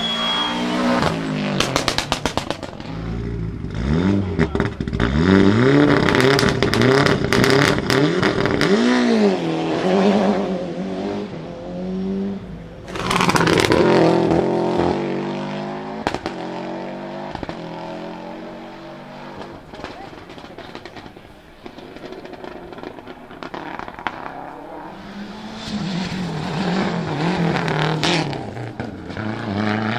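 Rally cars at speed, first a Subaru Impreza's turbocharged flat-four and then a Lancia Delta, engines revving hard and falling back through gear changes as they pass. A rapid string of exhaust pops comes about two seconds in, and a loud surge around thirteen seconds.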